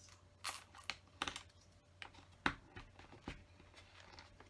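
Plastic LEGO bricks clicking and snapping as they are pried apart with a brick separator: several sharp, irregular clicks.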